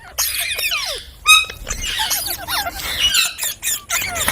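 Indian ringneck parakeet calling: a quick run of short chirps and squawks that slide up and down in pitch, with one louder squawk about a second in.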